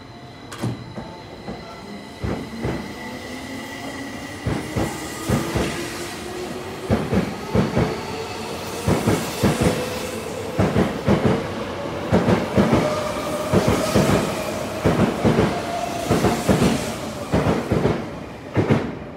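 Tokyo Metro 05 series electric train pulling out and accelerating. Its wheels clack over the rail joints in groups that come quicker and quicker, while the traction motors' whine rises steadily in pitch. The clacking stops near the end as the last car passes.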